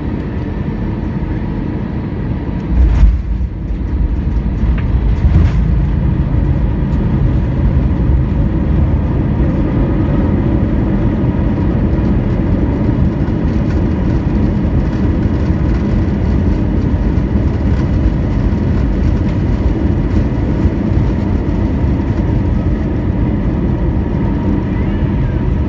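Airbus A320 landing, heard from inside the cabin over the wing: a heavy thump of the wheels meeting the runway about three seconds in, a second knock a couple of seconds later, then a louder steady rush of engine and runway noise as the airliner rolls out.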